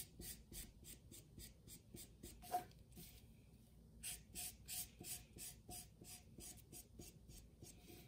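Felt-tip marker scribbling back and forth on a paper towel, faint quick strokes about three a second, with a short pause about three seconds in.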